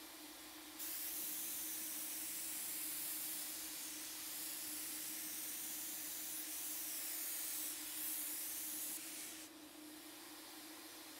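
Hose-fed cup spray gun spraying paint onto a dresser drawer front: a steady hiss of atomising paint that starts about a second in and cuts off a second or so before the end, over a steady low hum.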